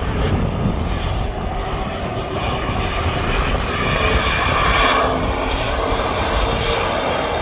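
Airplane engines running steadily with a deep rumble, and a whine that swells about four to five seconds in.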